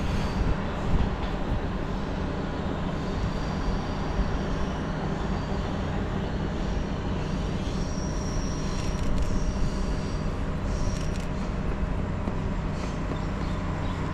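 Taiwan Railways EMU900 electric multiple unit departing and receding into the distance, heard as a steady low rumble with faint high squeals now and then.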